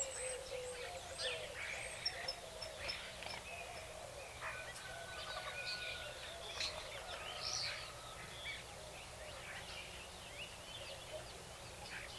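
Nature ambience of several birds chirping and whistling in short overlapping calls, a couple of longer level whistles among them, over a steady faint background hiss.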